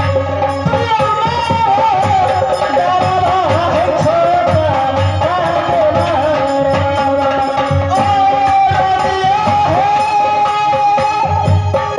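Live Indian folk music: a wavering, ornamented melody line over a steady held note and a regular drum beat.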